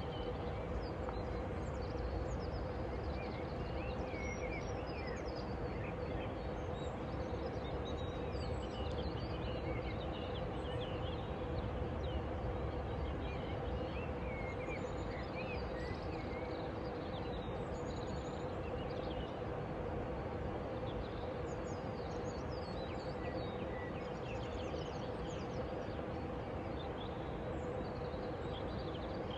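Small birds chirping and twittering on and off over a steady outdoor background noise with a faint constant hum.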